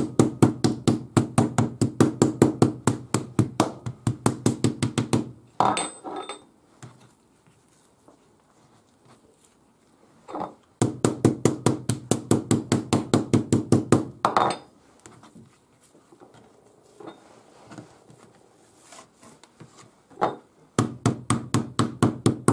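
Metal meat tenderiser mallet pounding a thin veal fillet on a plastic cutting board: rapid, even strikes about five a second, in three runs with pauses between. The fillet is being flattened and tenderised.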